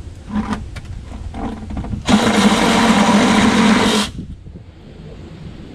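Cordless reciprocating saw cutting into the rim of a plastic 5-gallon bucket, running loudly for about two seconds from about two seconds in and stopping abruptly, after a few light knocks of the blade and bucket being handled.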